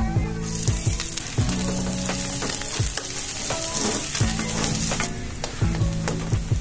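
Garlic and chopped onion sizzling in hot oil in a wok, stirred with a ladle that clicks and scrapes against the pan. The sizzle grows louder about half a second in as the onion goes into the oil.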